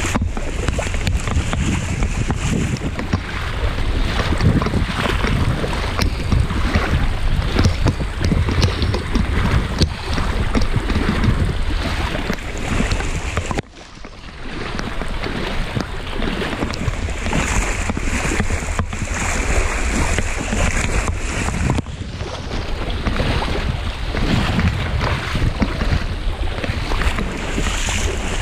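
Rubber boots sloshing and splashing through ankle-deep water with each step, over the hiss of heavy rain on the water and wind rumbling on the microphone. The sound dips sharply for a moment about halfway through.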